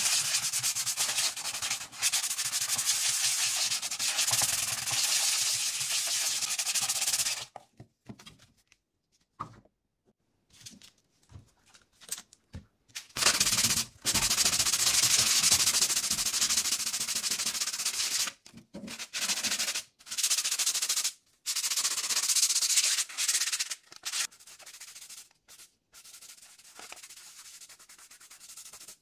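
Sandpaper rubbed back and forth by hand over the casing of an old mini television, giving a steady scratching. It comes in long spells broken by short pauses and stray scrapes.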